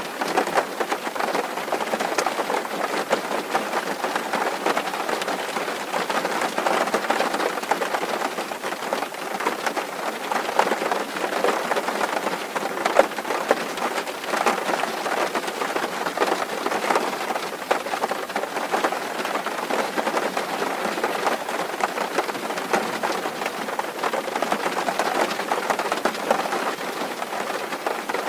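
Steady, dense rain falling on a metal roof: a constant patter of countless individual drops with no let-up.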